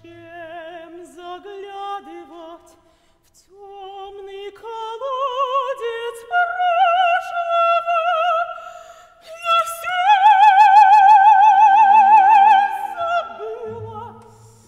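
A woman singing an operatic solo with wide vibrato. Her short phrases climb in pitch to a long, loud high note held from about ten seconds in, and quiet sustained low orchestral notes sound beneath the end of it.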